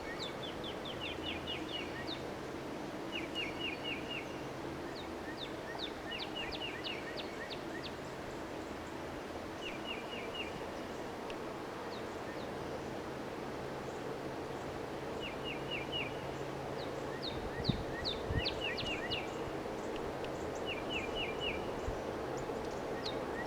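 Small birds calling in short, rapid trills of high chirps, repeated every few seconds, over a steady low rumble. A couple of low thumps come about three quarters of the way through.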